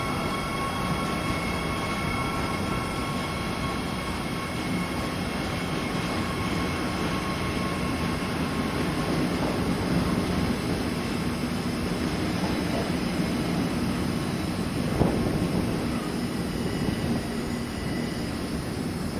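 A train running past with a steady rolling noise. Wind buffets the microphone throughout.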